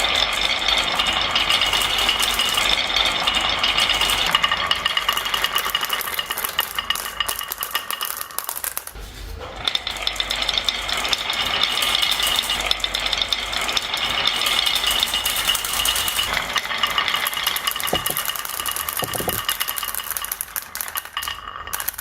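Many marbles rattling and clicking as they roll down a marble run track in a dense, continuous clatter, easing off briefly about nine seconds in.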